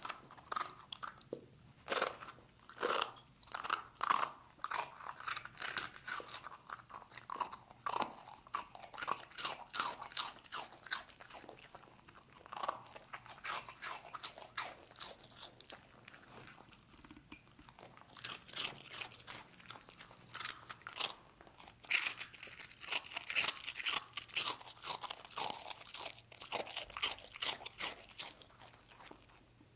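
A dog crunching and chewing pieces of dry, crisp rusk in a long run of quick, sharp crunches that let up briefly about halfway through.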